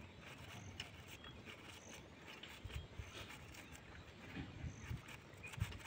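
Faint crisp knife cuts through a cabbage held in the hand, slicing it into a bowl without a chopping board, with a few soft low thumps. A few short high chirps sound in the background.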